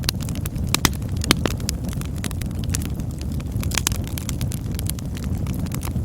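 Campfire burning: irregular crackles and sharp pops of burning wood over a steady low rumble, with louder pops about a second in and near the four-second mark.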